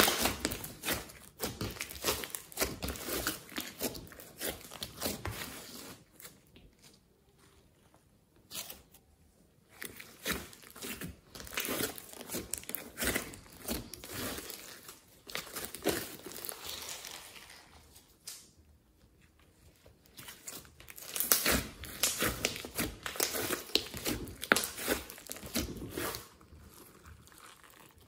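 Thick glossy slime with clay, glitter and foam beads mixed in, pressed, stretched and folded by hand, giving dense sticky crackles and pops. The crackling comes in stretches with two short quiet pauses.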